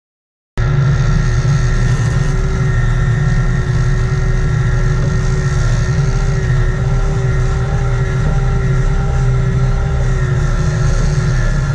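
Sport-fishing charter boat's engines running steadily at a constant speed, a loud low rumble with a steady hum on top, heard from aboard. It starts abruptly about half a second in.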